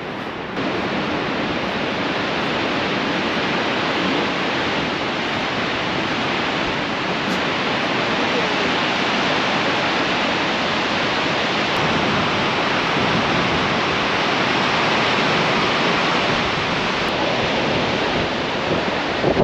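Steady rushing roar of a waterfall close by, growing louder about half a second in.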